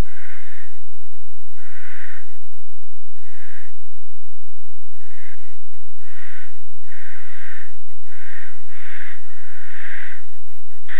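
Barn owl giving a string of rasping, hissing screeches, each about half a second long, repeated roughly once a second and coming closer together in the second half.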